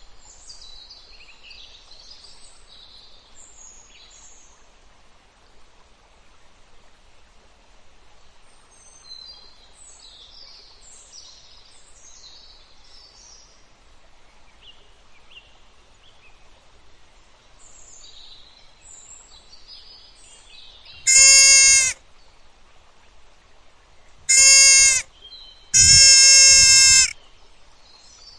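Three loud bleats, each held at a steady pitch, come in the last third, the third one the longest. Faint birdsong chirps before them.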